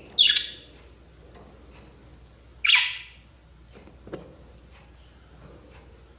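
A parrot gives two loud, harsh squawks about two and a half seconds apart.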